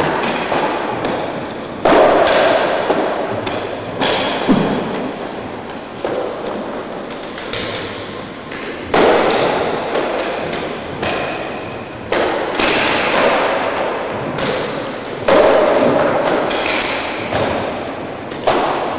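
Nunchaku being swung, struck and caught during a kata. A sharp thud comes every two to four seconds, and each one rings out in a large, echoing hard-walled room.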